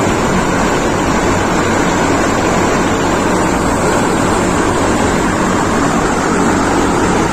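Steady rush of water from a bottle-type cooling tower's rotating sprinkler pouring down through the tower, driven by one circulating pump just switched on, with a low hum beneath.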